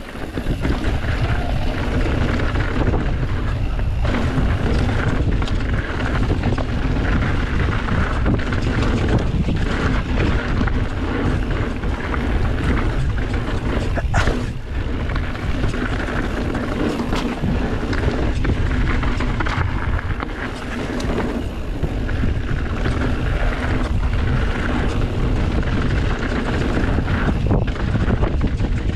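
Wind noise on a GoPro microphone and the rumble of a mountain bike rolling fast down a dirt trail. There is one sharp knock about halfway through.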